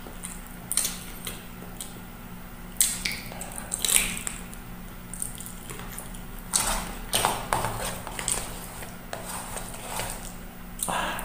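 Close-up mukbang eating sounds: wet chewing and smacking on chicken feet adobo, with irregular clicks and crackles as fingers pick through rice on a woven bamboo tray.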